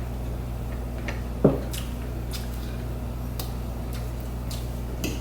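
A person eating: scattered small clicks and soft, wet chewing over a steady low hum, with one louder short sound about a second and a half in.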